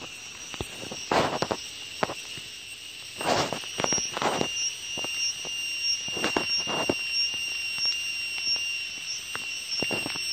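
Several short rustling handling noises, about a second in, again between three and four and a half seconds in, and around six and a half seconds in, over a steady high-pitched whine with a faint regular pulse.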